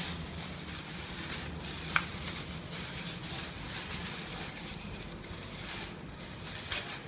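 Clear plastic accessory bag crinkling and rustling in the hands as it is handled and opened, with one sharp click about two seconds in.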